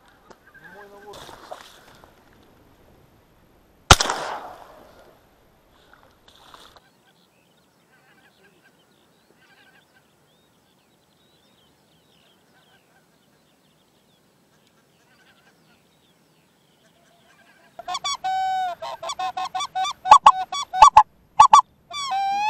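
One sharp, loud bang about four seconds in, then, near the end, a burst of geese honking, many calls in quick succession.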